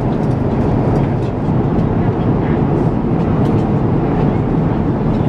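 Steady roar of cabin noise inside an Airbus A350-1000 airliner in flight: engine and airflow noise, deepest in the low end, with a few faint light clicks over it.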